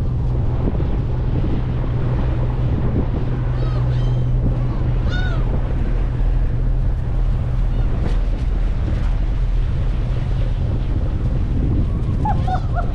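Steady hum of a tour boat's engine with wind buffeting the microphone and water rushing past the hull. A few short, high gull cries come through near the beginning and again near the end.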